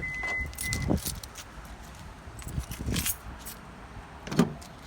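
A bunch of keys jangling and clinking in scattered short rattles. A high, steady electronic beep, broken briefly, sounds at the very start and stops within the first second.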